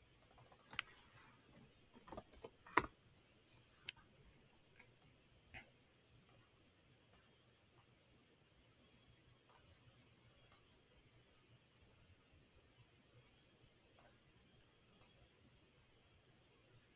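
Computer mouse clicks and a short quick run of keyboard taps, coming at irregular intervals with quiet gaps between them.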